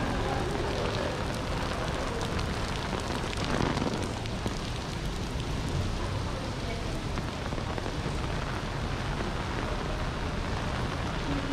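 Steady rainfall pattering on hard surfaces, with many small drop ticks. A brief louder whoosh of noise comes about three and a half seconds in.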